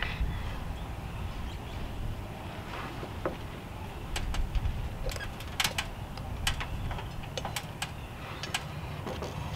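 Wind buffeting the microphone with a steady low rumble. Starting about four seconds in comes a scattered series of sharp knocks and clicks: a 2x6 wooden fascia board being set and fastened to the roof framing.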